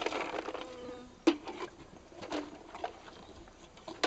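A donkey feeding from a metal bucket of greens while a plastic scoop is worked in it: rustling and crunching, with a sharp knock against the bucket about a second in and two lighter knocks later.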